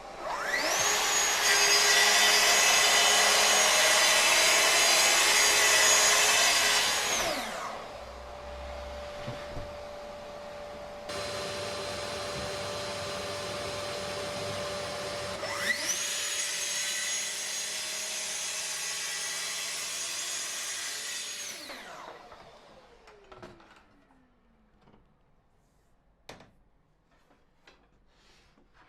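Electric circular saw spinning up with a rising whine and cutting through sheet material for about six seconds, then winding down. A lower steady hum carries on through a pause, then the saw starts again about halfway through for a second cut of similar length and winds down. A few light clicks follow near the end.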